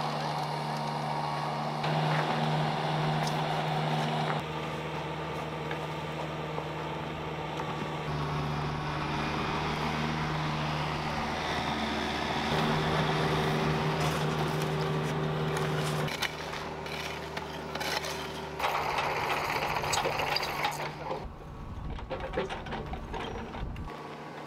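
Mini excavator's diesel engine running steadily as a constant low hum, its level and tone shifting abruptly every few seconds. Scattered clicks and scrapes come in near the end.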